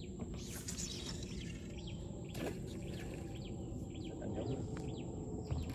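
Small birds chirping over and over in short, high, falling calls, over a steady low rumble.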